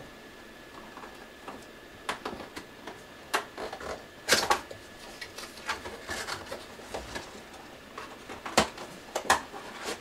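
Graphics card packaging being handled: irregular rustles, scrapes and clicks. The loudest comes about four seconds in, and two sharper ones come near the end.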